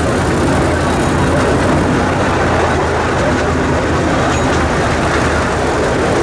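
Miniature riding train under way: the locomotive's engine running steadily with the rumble of the wheels on the rails, heard from the cars it pulls.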